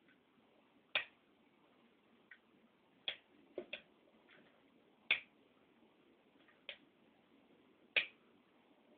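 Sharp single clicks at irregular intervals, about seven clear ones and a few fainter ones, over faint steady background noise.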